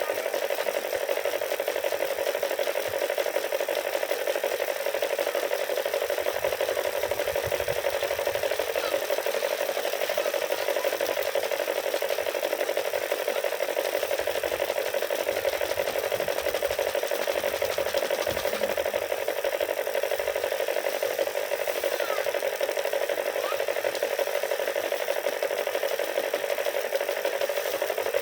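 Paddy threshing machine running steadily as rice is threshed, a constant whirring drone with a scraping, rubbing hiss.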